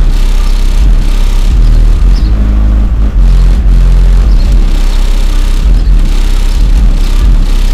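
A car making a loud, deep, rumbling noise that overloads the recording, with shifting low tones and stretches of hiss.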